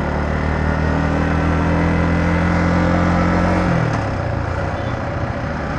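Yamaha MT-15's single-cylinder 155 cc engine pulling under throttle while riding, its note holding and rising slightly, then falling sharply about four seconds in as the revs drop away.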